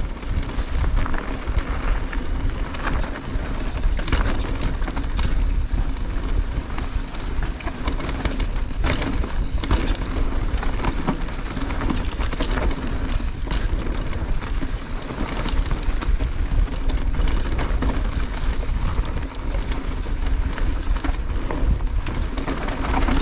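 Mountain bike descending a dirt trail at speed: continuous wind and rolling rumble on the bike-mounted camera, with frequent rattles and knocks as the bike goes over bumps.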